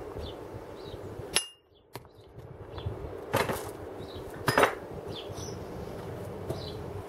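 Steel stone-carving tools clanking: a sharp knock about a second in, then short clusters of clanks around three and a half and four and a half seconds. The sound drops out briefly between the first knock and the rest.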